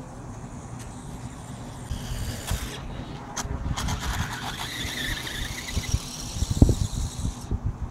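An RC motorcycle's motor whining high, its pitch rising and falling as it speeds up and slides on snow, from about two seconds in until it cuts off near the end. Under it runs a low, uneven rumble, with one sharp thump a little before the whine stops.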